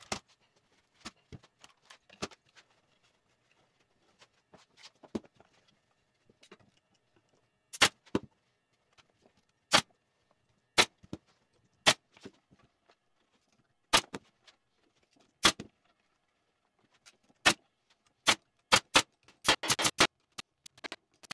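Pneumatic stapler firing staples through fabric into a wooden chair frame: sharp single shots one to two seconds apart from about eight seconds in, coming in a quick run near the end. Fainter clicks and knocks come before the first shot.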